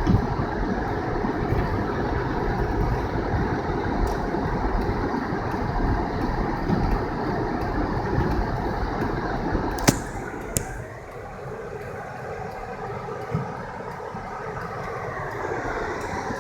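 Car driving through a snowstorm: a steady rumble of tyres and engine. About ten seconds in there are two sharp clicks, and the rumble then drops to a quieter, softer level.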